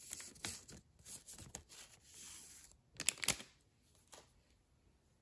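Baseball trading cards being handled: a stack of cards rustling and sliding against one another in a string of short scrapes, with a louder rustle about three seconds in and a light tick near the end.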